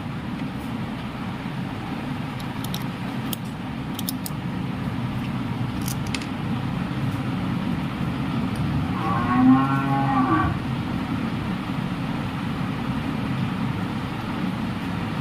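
A cow mooing once, a long call about nine seconds in, over a steady low background rumble, with a few faint clicks earlier on.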